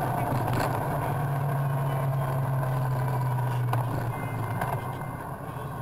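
Vehicle engine running at a steady pitch while driving along, with road and wind noise; about four seconds in the engine note drops away and the sound grows quieter.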